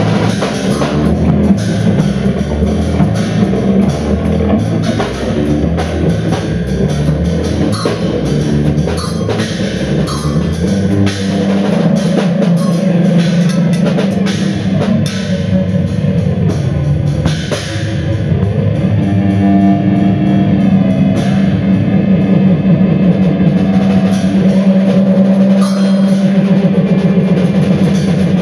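A live band performing, with drums and guitar in a dense, continuous mix. About two-thirds of the way through, a steady low drone comes to the fore under the percussion.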